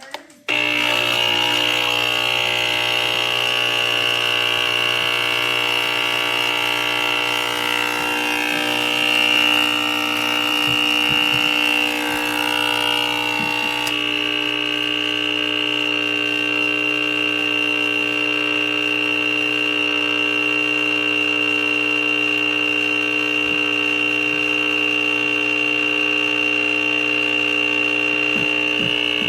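Steady electric buzzing hum from a small motor or pump, switching on abruptly just after the start and running on at an unchanging pitch.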